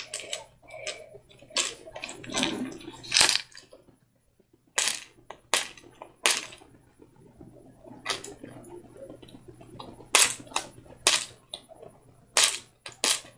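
Hands peeling tape off a plastic surprise egg and handling it: a string of irregular sharp clicks and crackles, with a brief rustle early on.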